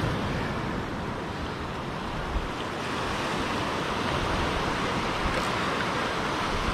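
Ocean surf washing steadily against a rocky shoreline.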